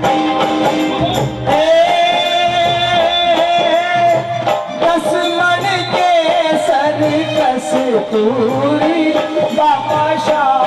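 Live Khatu Shyam bhajan music: a held, wavering melody line over a steady drum and percussion beat.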